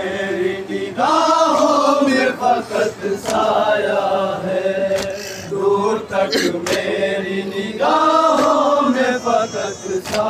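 Several men chanting a noha, a Shia lament, without instruments and amplified through microphones, with a few short sharp hits.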